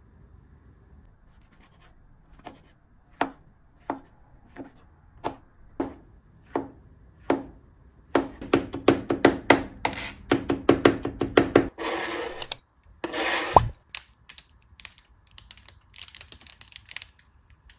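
Small kitchen knife slicing fresh shiitake mushrooms on a plastic cutting board: single cuts spaced out at first, then a quicker run of cuts about eight seconds in. Near the end come two brief scraping sounds and a few light clicks and knocks.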